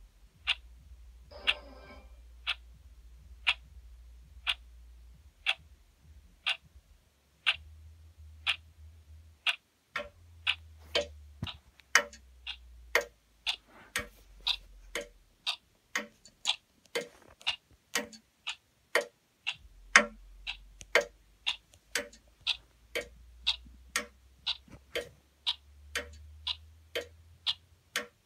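Clock ticking: sharp, even ticks about once a second, which come about twice as fast from about ten seconds in.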